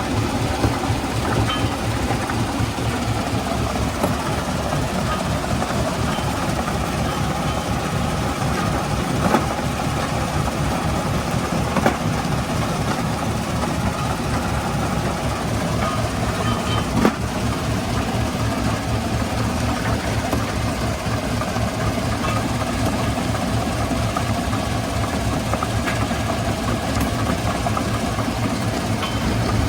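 Stone crushing plant running: a steady, heavy mechanical rumble, with three sharp knocks standing out from it.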